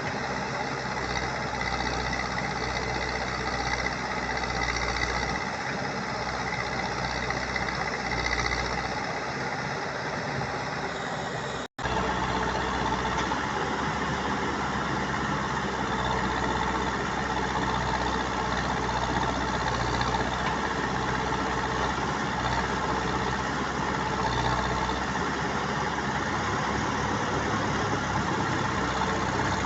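Diesel engine of a JCB 3DX Plus backhoe loader running steadily while loading soil, with the sound cutting out for an instant about twelve seconds in.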